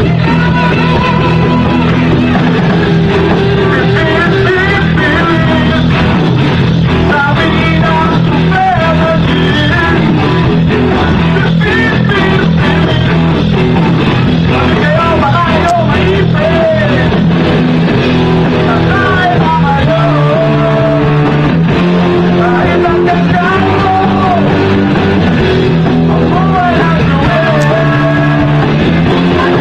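Live rock band playing loudly, with electric guitar, a steady drum beat and a voice singing over it.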